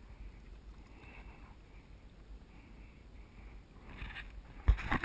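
Kayak paddle strokes in calm water, giving soft splashes at an even pace, over a low wind rumble on the microphone. A sharp, loud thump comes near the end.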